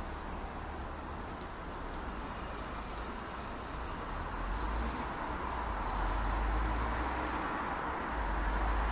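Outdoor ambience: a steady rumbling noise with low wind buffeting, growing slightly louder near the end, and a few short high bird chirps about two, six and nine seconds in.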